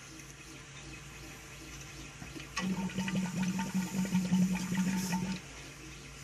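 Fuel gushing and splattering out through the old fuel line when the tank's shutoff valve is opened, running for about three seconds from a little over two seconds in, then stopping and starting again at the end. The flow shows that the on/off valve works.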